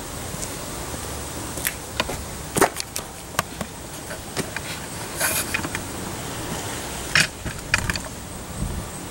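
Scattered light clicks and knocks over a steady background hiss, the loudest a little over two and a half seconds in, with a short rustling burst about five seconds in.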